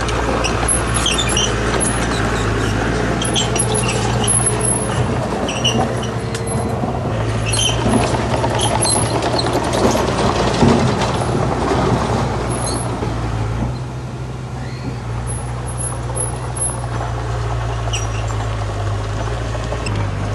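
Heavy diesel earthmoving machinery running steadily, with scattered clanks and short high squeaks over the engine.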